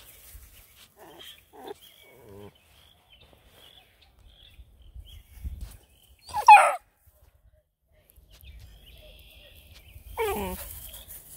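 Bluetick Coonhound puppies giving a few small whines and yips, then a single loud bark about six and a half seconds in, and a short call near the end that drops in pitch.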